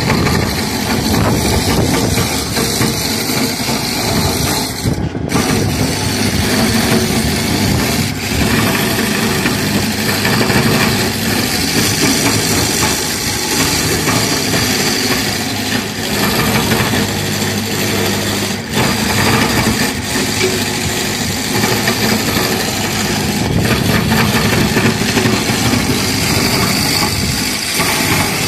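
Small engine on a walk-behind concrete surface machine, running loudly and steadily as it is worked across a concrete roof.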